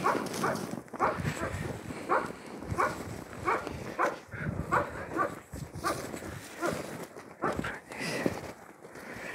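Footsteps crunching in packed snow, about two steps a second, an even walking rhythm.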